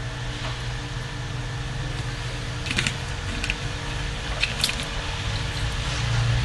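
Steady low room hum, with a few light clicks and taps in the middle from a glass bottle being handled between sips.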